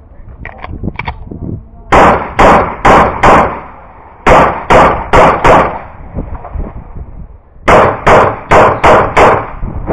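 Pistol fired in three quick strings of four to five shots each, the shots about 0.4 s apart, with a pause of about a second between strings as the shooter moves between target arrays.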